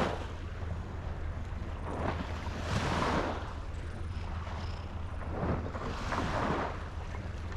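Sea waves washing against a breakwater, swelling and easing about every three seconds, over a steady low hum.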